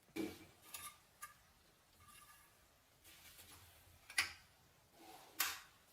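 Restored padlock being worked by hand: about five sharp metallic clicks and clacks, the first few with a brief metallic ring, with faint handling rustle between them.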